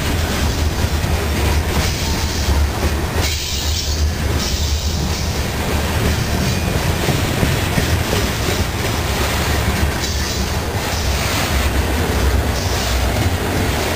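Bessemer & Lake Erie ore cars rolling past close by, their steel wheels rumbling and clattering steadily on the rails.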